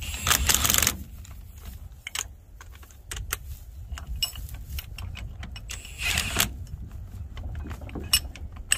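Metal hand tools clinking and knocking on a car's front brake drum and hub, with two louder noisy bursts, one at the start and one about six seconds in, over a steady low rumble.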